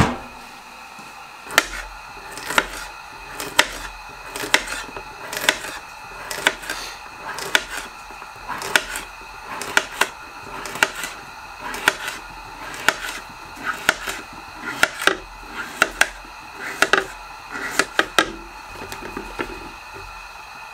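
Knife slicing a cucumber on a plate: a sharp tap of the blade on the plate with each cut, about one cut a second, sometimes two in quick succession.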